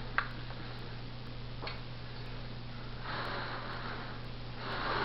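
A sharp click of metal feeding tongs just after it begins, then soft rustling of newspaper bedding in a plastic tub as a thawed rat is set down beside a ball python, over a steady low hum.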